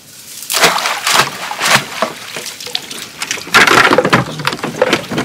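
Water splashing and streaming off a wire-mesh fish trap as it is hauled from the river into a small boat, with knocks and rattles of the trap against the hull. The loudest splashing and clattering comes about three and a half seconds in.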